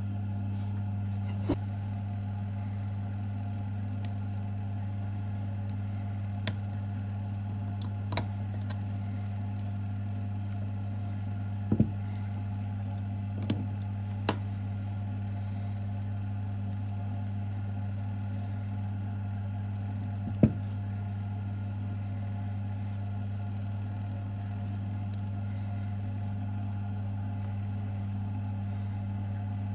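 A steady low hum with a handful of scattered sharp clicks and knocks, the loudest about twenty seconds in.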